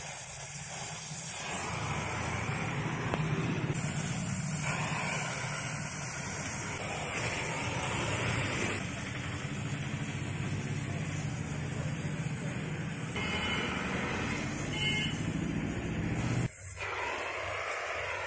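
TVS Apache 200 motorcycle's single-cylinder engine running through its exhaust, a steady low pulsing sound that shifts in level a few times; the low engine sound drops away suddenly near the end, leaving a hiss.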